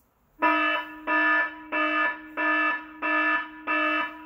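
Electronic alarm-like buzzer beeping in a steady rhythm, about one and a half buzzy beeps a second, starting about half a second in.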